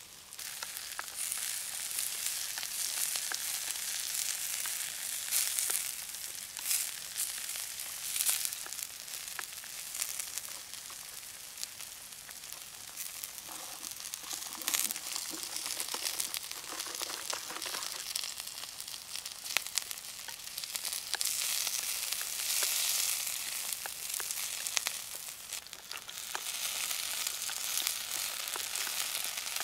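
Stir-fried noodles and vegetables sizzling in a pan over a campfire: a steady hiss that swells and eases, with scattered crackles.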